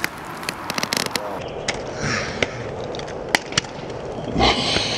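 Scuffing and knocking on rough concrete: many short clicks and scrapes over a steady rush of noise, growing louder near the end.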